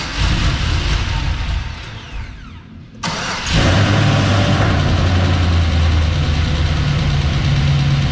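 Freshly rebuilt LS V8 in a Cadillac CTS-V cranking roughly, then firing about three seconds in and settling into a steady idle: its first start after the rebuild.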